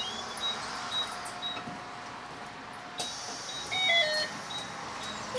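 Electronic beeping inside a city bus stopped with its door open: a short high beep repeating about twice a second, over a steady lower tone that stops about three seconds in. Then comes a sudden burst of noise and a quick run of falling beeps.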